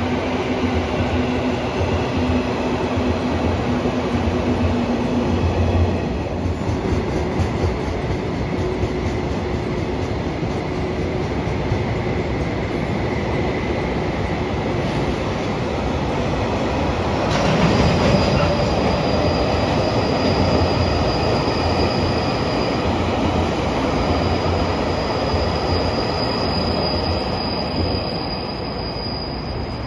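Train running on steel rails, a steady sound of wheels and running gear, with a thin high wheel squeal setting in about halfway through and holding.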